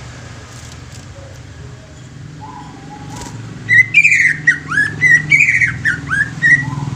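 A cucak ijo (greater green leafbird) sings a loud burst of quick, clear whistled notes with sharp downward slurs, starting about halfway in and lasting about three seconds. A steady low rumble runs underneath.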